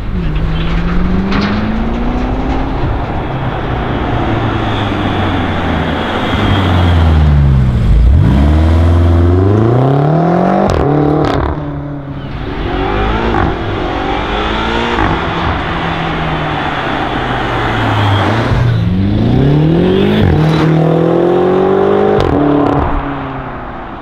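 2015 BMW X5M's 4.4-litre twin-turbo V8 accelerating hard, its pitch rising and then dropping at each upshift, with short sharp cracks at the gear changes. It is loudest about eight seconds in, where the pitch dips and climbs again, and it runs through two more rising pulls later on.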